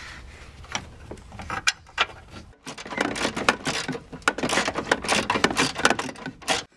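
Hand ratchet clicking in quick runs with metal scraping as the coolant expansion tank's bracket bolts are driven in, after a few scattered light clicks; the sound breaks off abruptly about two and a half seconds in and again just before the end.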